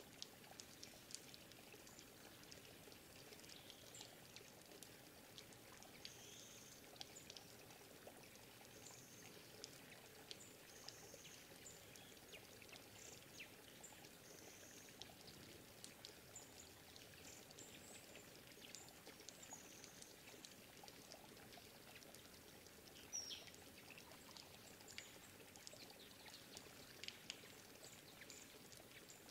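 Faint forest ambience: a steady rush of running water, with many short, high-pitched bird chips and calls scattered through it and one louder call about three-quarters of the way through.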